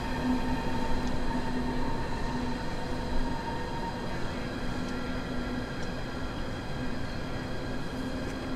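Berlin U-Bahn train crossing the Oberbaum Bridge's elevated deck: a steady rumble with a hum of several held tones from the train's running gear and motors.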